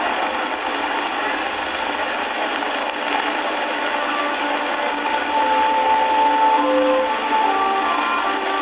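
Old film soundtrack with a steady loud hiss. From about five seconds in, a few long held notes are played over it, stepping between pitches like a slow melody.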